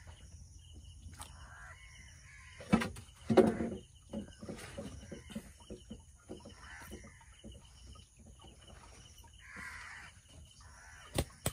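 Crows cawing several times, with two loud thumps about three seconds in and a sharp click near the end as fish are handled into a plastic basin.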